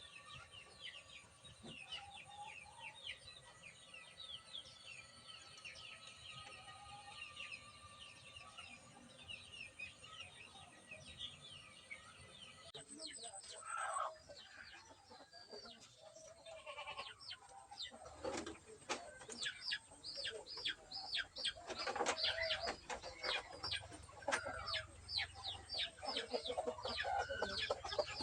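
Chickens clucking among rapid chirping calls. The first part is quieter, with a steady high ringing tone and scattered chirps; after an abrupt change about halfway through, the calls grow denser and louder.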